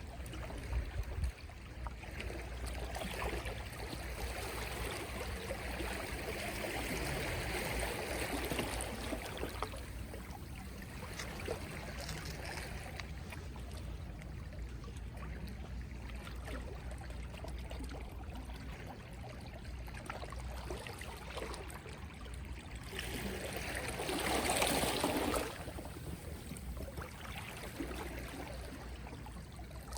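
Gentle sea waves lapping and washing on the shore, rising and falling in slow surges, with one louder wave washing in a few seconds before the end.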